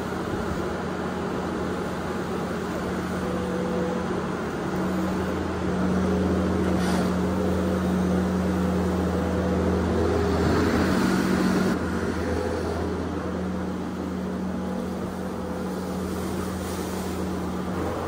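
Case SV340 skid steer's diesel engine running steadily while its grapple spreads corn stalk bedding, louder for several seconds in the middle before settling back.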